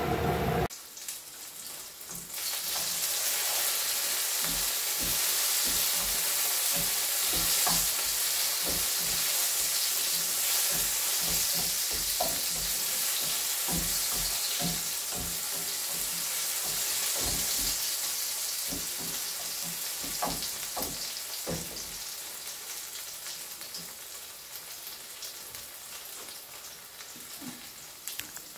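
Sliced onions sizzling in a non-stick frying pan on a gas hob, with a wooden spatula knocking and scraping against the pan as they are stirred. The sizzle starts about two seconds in and slowly fades toward the end.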